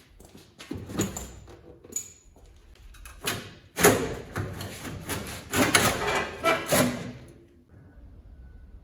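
Workshop clatter from car strip-down work: a series of irregular knocks and clanks, a couple with a brief metallic ring, then a busier stretch of scraping and knocking.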